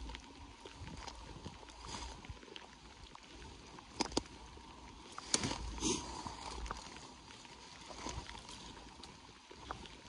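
Footsteps through wet, tall grass and brush: boots swishing and crunching in an irregular walking rhythm, with the loudest brushing about four seconds in and again near the middle.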